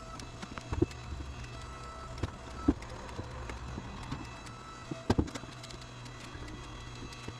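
A few sharp snips and cracks, the loudest near the middle, typical of pruning shears cutting through juniper branches, over a steady low machine hum.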